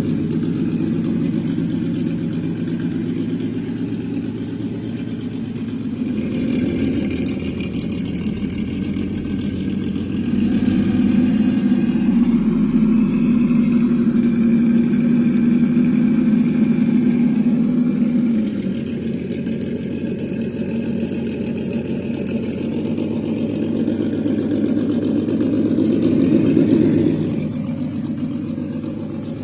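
ESS Dual engine-sound module on a Traxxas TRX-4 RC crawler playing a simulated engine note. It idles, is held at a higher rev for several seconds in the middle, drops back, then dies down again near the end.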